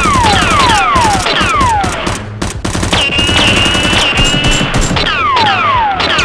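Gunfire sound effects dubbed over a Nerf blaster fight: rapid automatic fire with quick falling whistles near the start and again near the end, and a steady high whistling tone in the middle.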